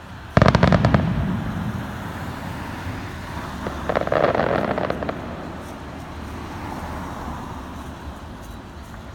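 Aerial fireworks going off: a sudden loud burst about half a second in breaking into rapid crackling, then a second spell of crackling around four seconds in.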